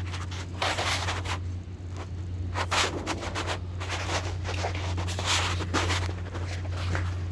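Steady low engine hum with irregular scraping noises over it, several short scrapes a second or two apart.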